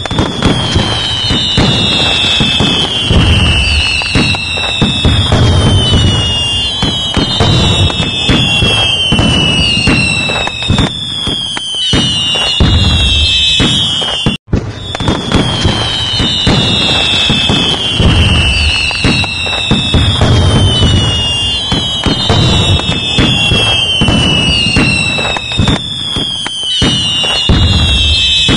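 Fireworks: dense crackling and bangs with a falling whistle about every second. The same recording cuts out briefly about halfway through and loops.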